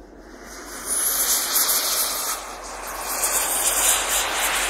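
Radio-controlled model jet flying past overhead: a loud rushing jet hiss that swells sharply about a second in and stays loud.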